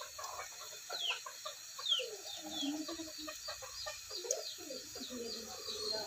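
Chickens clucking, with many short high chirps that fall in pitch.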